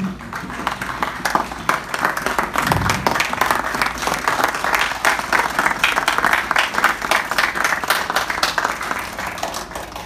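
Audience of seated guests applauding, many hands clapping together, tapering off near the end.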